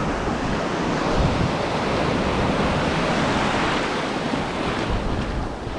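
Small waves breaking and washing in at the shoreline in a steady wash of surf, with wind buffeting the microphone in low rumbles.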